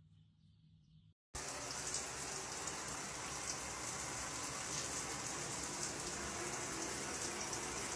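A steady rushing noise, like running water, starting abruptly about a second in after a faint low hum.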